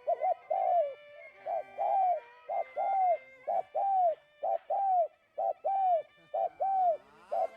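A dove cooing over and over in a regular rhythm: a short coo followed by a longer, arching coo, about once a second.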